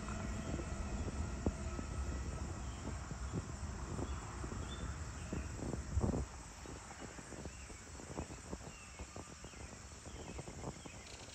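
Low rumble of a passing vehicle dying away, dropping off sharply about six seconds in, over faint insect chirping. Scattered light clicks follow in the quieter second half.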